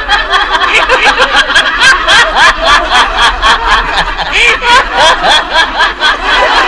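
Men laughing heartily, a quick, even ha-ha-ha rhythm.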